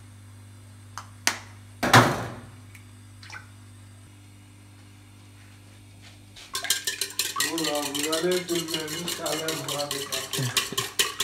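Eggs cracked against a stainless steel bowl: a few sharp separate knocks, the loudest about two seconds in. From about six and a half seconds on, eggs beaten in the steel bowl: a fast, regular clinking of the utensil against the bowl.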